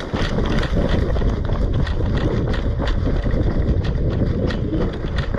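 Wind buffeting the microphone in a steady low rumble, over a quick, irregular run of short knocks.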